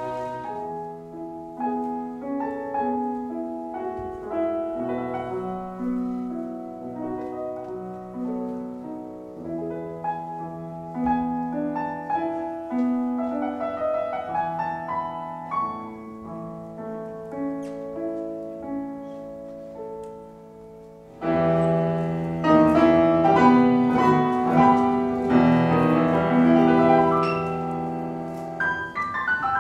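Solo grand piano playing a slow classical piece, with held notes and chords. About two-thirds of the way through it turns suddenly louder and fuller, with dense chords.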